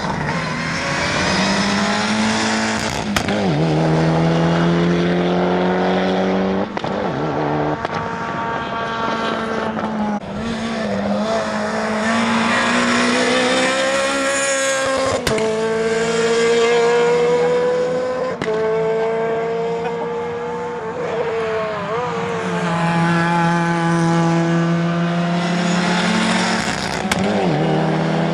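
Rally car engines at full throttle on a tarmac circuit, one car after another: each engine note climbs steadily, then falls back at every gear change. There are a few abrupt breaks where one car's sound gives way to the next.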